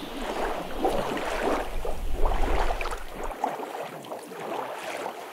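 Lake water lapping at a sandy shore in soft, uneven swells, with a low wind rumble on the microphone that cuts off about three and a half seconds in.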